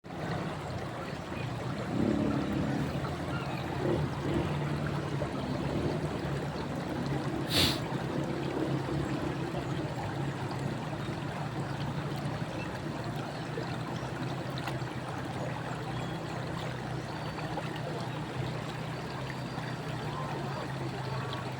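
River water flowing steadily, with a low steady hum underneath and one sharp click about seven and a half seconds in.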